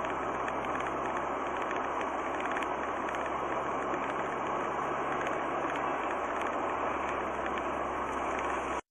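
Steady road and engine noise of a moving car, heard from inside the cabin through a dashcam microphone, with a faint low hum beneath. It cuts off suddenly at the very end.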